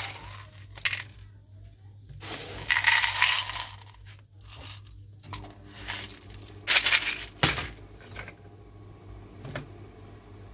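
Small hard candies rattling and clinking inside a plastic jar as it is handled and shaken: two longer rattles, one about two seconds in and one about seven seconds in, with a few short clicks between.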